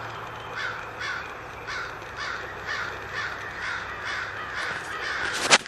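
Crows cawing in a rapid, steady series of about two caws a second, mobbing a red fox. A single sharp knock sounds near the end.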